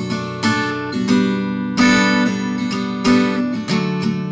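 Acoustic guitar strummed in chords with no voice, the chord changing about a second in and again near the end.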